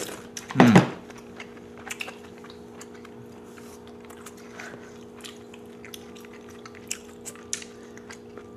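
Mouth sounds of eating kimchi stew: sipping hot broth off wooden spoons and chewing, with small slurps, smacks and clicks scattered throughout. There is a short loud voice sound about a second in, and a faint steady hum underneath.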